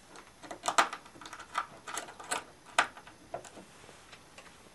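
A run of irregular sharp clicks and knocks, about ten of them in three seconds, the loudest near the start and about two thirds of the way in: the small oscilloscope kit and its screwed-on chassis being handled and set against the table during final assembly.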